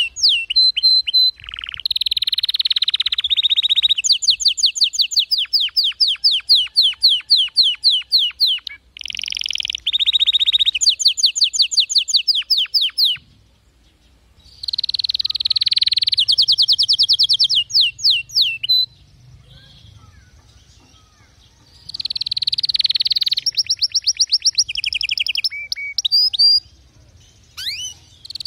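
Domestic canary singing: long rapid trills of quickly repeated high notes run together into a song, broken by a few short pauses.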